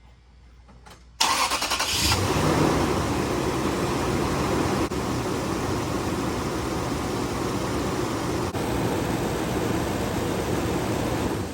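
Toyota Tundra's 4.7-litre V8 cranked and starting about a second in, then idling steadily, freshly refilled with oil after an oil change, and shut off at the very end.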